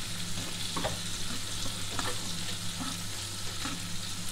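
King prawns sizzling in hot oil in a frying pan, a steady hiss, with a few light clicks of metal tongs against the pan as the prawns are turned. A steady low hum runs underneath.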